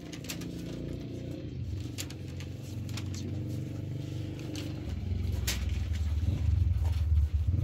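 An engine running with a low, steady rumble that grows louder about five seconds in, with a few light clicks over it.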